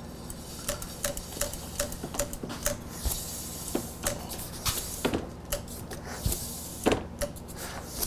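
Motorcycle front brake lever being pumped to seat the brake pads against the disc: a run of light clicks about three a second, then a few louder knocks later on.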